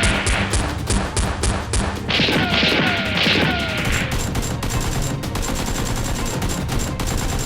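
Rapid gunfire in a shootout between Nerf blasters, shot after shot in quick volleys, over background music.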